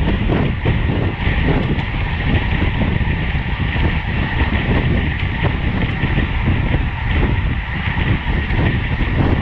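Wind rushing and buffeting over the microphone of a camera on a racing road bicycle at speed, with road and tyre noise underneath. The noise is loud and steady, with uneven gusts.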